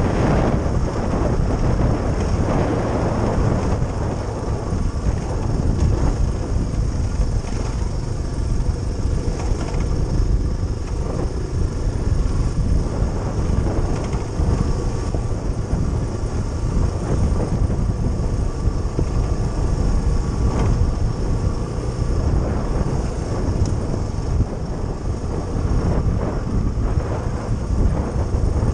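Suzuki DR350SE's single-cylinder four-stroke engine running steadily under way on a dirt track, heard from the bike itself under heavy wind rumble on the microphone.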